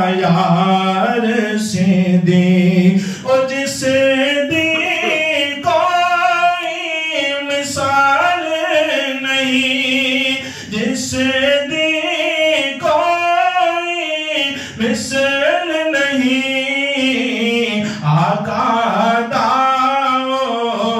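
A man singing a manqabat, a devotional praise poem, solo and unaccompanied into a microphone. He draws out long notes with wavering ornaments, pausing briefly between phrases.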